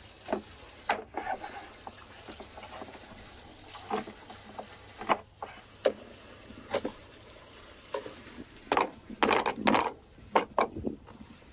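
Knife cutting up raw whole chickens on a wooden cutting board: irregular sharp taps and knocks of the blade and the carcass on the board, coming close together near the end.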